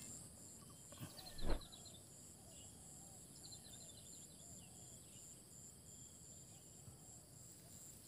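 Faint insect chorus: a steady, evenly pulsing high trill with a higher steady hiss, and two short runs of quick high chirps. A single soft thump about one and a half seconds in.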